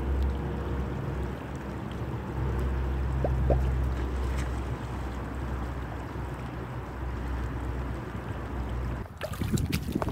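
Steady rush of a shallow river rapid, with wind buffeting the microphone. About nine seconds in it gives way to close splashes and sharp clicks as a caught fish is handled over shallow water.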